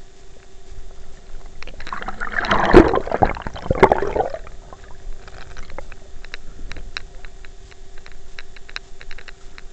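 Muffled water sloshing and splashing heard through an underwater camera's waterproof housing, with a louder rush of water about two seconds in, followed by scattered clicks and knocks against the housing over a steady faint hum.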